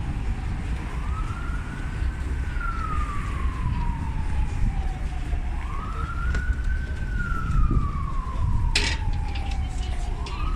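An emergency vehicle's siren wailing, rising and falling slowly about every four and a half seconds, over a steady low rumble of street noise. A sharp click comes about nine seconds in.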